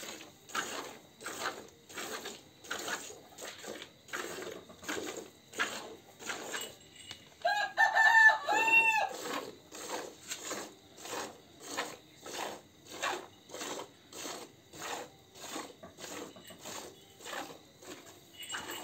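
Milk squirting from a cow's teats into a plastic bucket during hand milking, in a steady rhythm of about two squirts a second. About eight seconds in, a rooster crows once, loudly.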